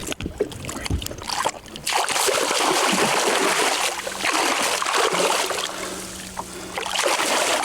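A few knocks, then from about two seconds in a steady, loud splashing and sloshing of water.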